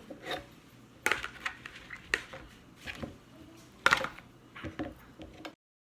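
A spoon scraping the seeds out of a sliced-open jalapeño pepper: about six short clinks and scrapes of utensil against dish. The audio cuts off suddenly near the end.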